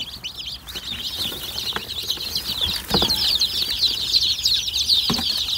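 A crowd of newly hatched chicken chicks peeping constantly in a plastic bucket, a dense stream of short high peeps that gets louder about three seconds in as the bucket is tipped into the brooder. A few dull knocks from the bucket cut through.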